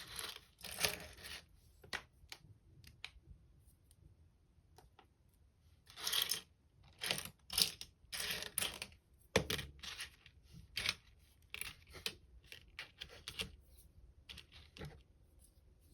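LEGO bricks being handled and snapped together: irregular small plastic clicks and rattles, with a busier stretch of rustling and clattering about six to nine seconds in.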